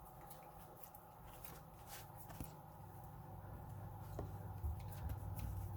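Tractor engine running steadily, heard faintly as a low drone from inside the cab, with a few light clicks and rattles.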